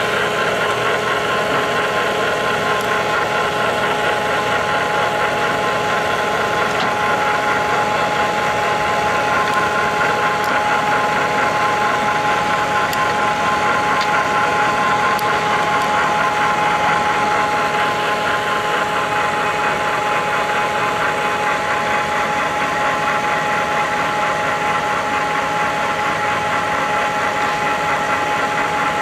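Wilton 2035 geared-head floor drill press running at a constant speed: a steady gear whine made of several held tones over a mechanical rumble, unchanging throughout.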